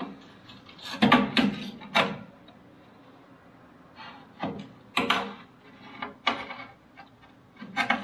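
Hand working at the metal burner assembly of an old gas furnace: irregular scrapes, rubs and light knocks of metal parts being handled.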